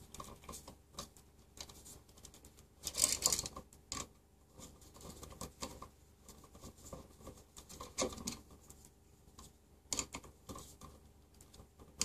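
Screwdriver tightening the terminal screws of a new wall outlet down on looped wires: scattered small metal scrapes and clicks, with a louder scrape about three seconds in and others near eight and ten seconds.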